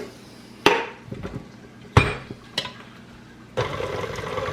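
Three sharp knocks of a utensil against a mixing bowl, then a KitchenAid stand mixer's motor starts near the end and runs steadily.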